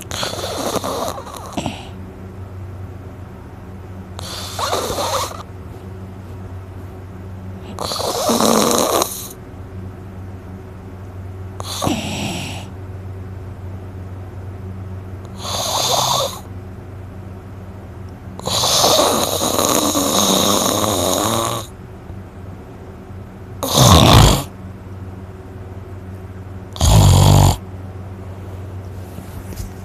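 A person snoring loudly, a snore about every four seconds, with one longer drawn-out snore around the middle and two short, louder snorts near the end. A steady low hum runs underneath.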